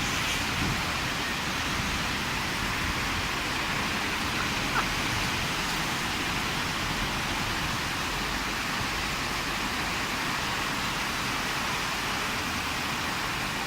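Heavy thunderstorm downpour: a steady, even hiss of rain pouring down, with one short tick about five seconds in.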